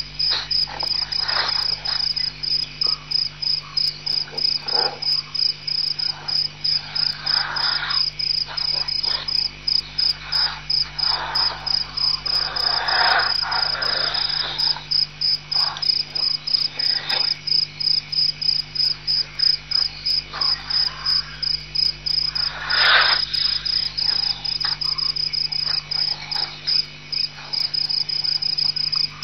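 Crickets chirping steadily at night, a high pulsing chirp about two to three times a second. A few soft swishing noises are heard under it, loudest about 13 and 23 seconds in.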